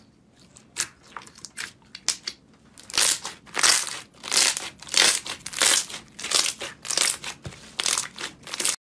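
Slime being squeezed and folded by hand, crackling and crunching. There are sparse soft clicks at first, then from about three seconds in, loud crackling squishes come about twice a second until the sound cuts off suddenly near the end.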